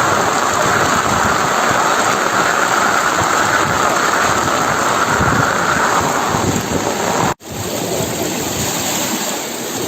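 Steady, loud rushing of water, heavy rain or floodwater pouring over the road. It cuts out abruptly for an instant about seven seconds in, then carries on a little quieter.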